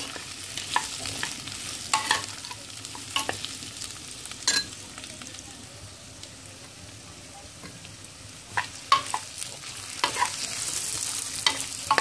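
Pork chunks and chopped onion sizzling in lard in a glazed clay cazuela, with a steady frying hiss. A metal spoon stirring them scrapes and clicks against the pot now and then.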